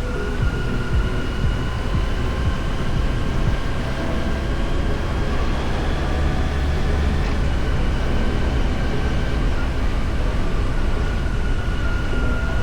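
Yamaha FJR1300's inline-four engine running at a steady pace while riding, under a continuous low rumble with a faint steady whine above it.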